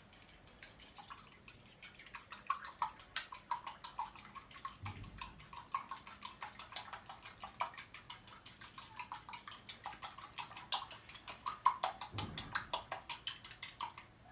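Egg and milk being beaten in a bowl: a rapid, regular clicking of the utensil against the bowl, with a couple of low thuds from the bowl partway through.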